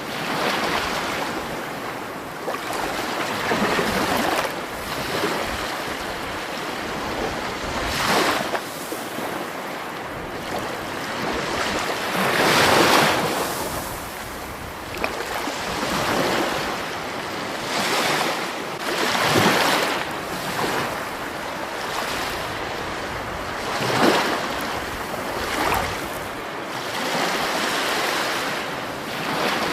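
Rushing water: a continuous wash of water noise that swells into louder surges every few seconds and then eases back.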